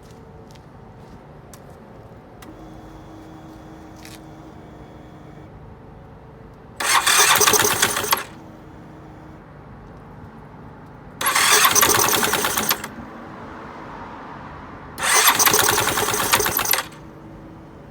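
Yamaha Cygnus X 125 cc single-cylinder scooter engine being started three times, each try a loud burst of about one and a half to two seconds of rapid cranking, without staying running. The scooter stalls and makes an abnormal noise that the owner suspects comes from the crankshaft.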